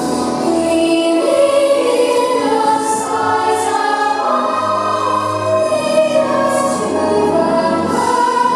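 Show soundtrack music with a choir singing.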